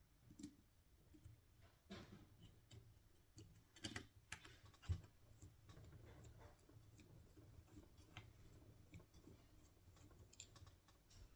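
Faint, scattered clicks and taps of small metal and plastic parts and tools being handled at a workbench while servos are screwed into a model helicopter frame, with one sharper tap about five seconds in.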